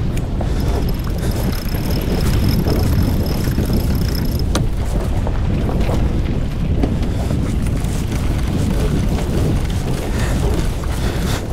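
Wind buffeting the microphone over water rushing along the hull of a sailing yacht under way, heeled in a fresh breeze. A thin high whine runs for a few seconds near the start, and a sharp click comes about four and a half seconds in.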